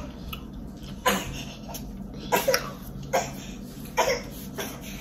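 A person's short, sharp mouth and throat sounds, about one a second, with two close together near the middle.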